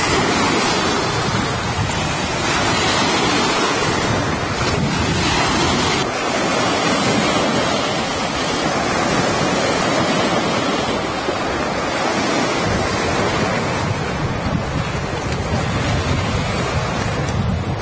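Wind blowing over the microphone: a loud, steady rushing noise, with shifting rumble in the low end.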